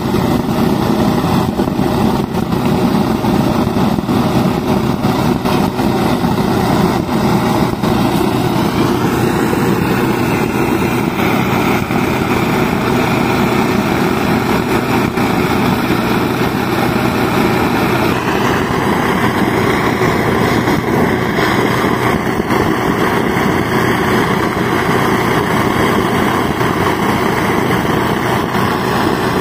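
Small petrol engine of portable rail-welding equipment running steadily on the track.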